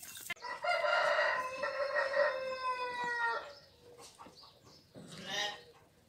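A rooster crowing once: a long, ringing call of about three seconds that drops in pitch at the end. A brief second animal call follows near the end.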